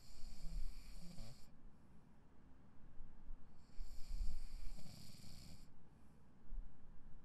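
A person snoring in sleep: two long snoring breaths about four seconds apart, each a low rattle with a breathy hiss over it.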